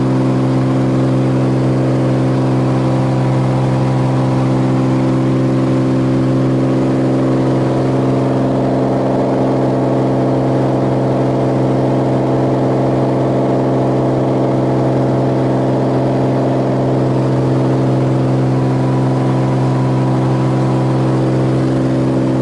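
Cirrus single-engine light aircraft's piston engine and propeller running steadily, heard inside the cockpit as a loud, even drone.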